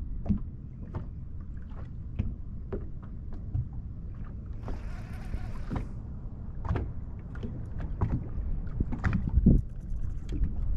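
Small waves slapping and lapping against a boat's hull in irregular knocks over a steady low wind rumble, with a brief hiss around the middle.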